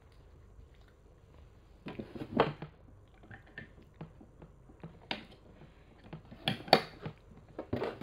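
Close handling noises: scattered short knocks and clicks, loudest about two and a half seconds in and again near seven seconds, as a pink plastic drink bottle is picked up and brought to the camera near the end.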